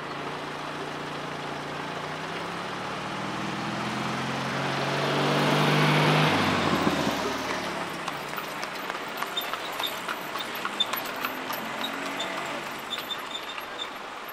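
A motor vehicle passes close by on the road, its engine getting louder to a peak about six seconds in, then dropping in pitch and fading. Lighter traffic noise follows, with scattered short clicks and faint high chirps.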